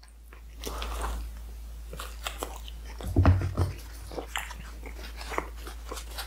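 Close-up chewing of a mouthful of flatbread dipped in sauce: a run of short wet mouth clicks and smacks, with a short low hum about halfway through.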